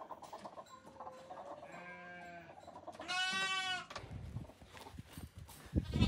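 Lamb bleating: a short bleat about two seconds in, then a louder, longer bleat about three seconds in. Soft low thumps follow near the end.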